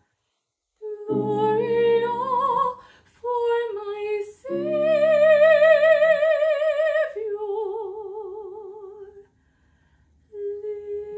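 A woman singing in a classical, operatic style with wide vibrato, accompanied by grand piano chords. After a short silence she sings a phrase, holds a long high note in the middle, then a softer lower phrase, and after another brief pause the piano comes back in near the end.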